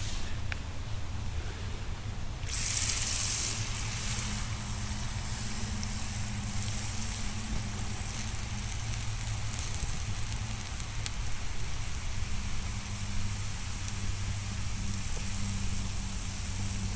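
Hot frying oil sizzling and bubbling as funnel cake batter goes into the pan. The sizzle starts suddenly about two and a half seconds in and then carries on steadily over a low hum.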